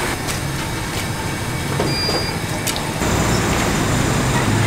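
Steady roadside traffic noise with a few sharp clicks and a brief high beep about two seconds in.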